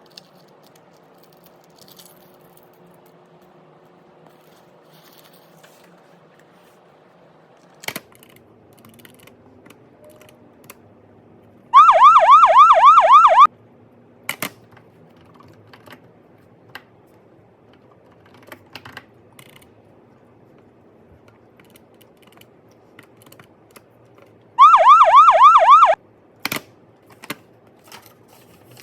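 An electronic siren-like warbling tone sounds twice, each time as a quick run of rising sweeps lasting about a second and a half. Scattered light clicks and taps fill the gaps between them.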